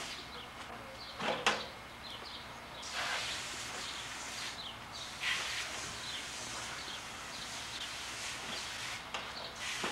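Water from a garden hose running into a galvanized washtub, a steady hiss that starts about three seconds in, with birds chirping. A couple of knocks come about a second in, before the water starts.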